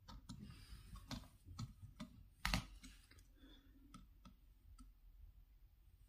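Small screwdriver turning a terminal screw on a plastic socket board to clamp a wire: faint, scattered metal-on-plastic clicks, one louder click about two and a half seconds in.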